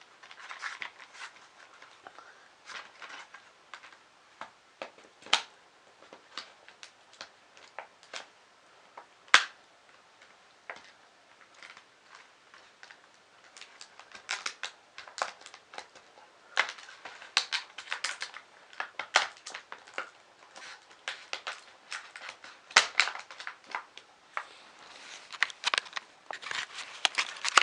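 Irregular clicks, snaps and crackles of stiff plastic packaging and small 3D printer parts being handled, sparse at first with one sharp snap, then busier over the second half.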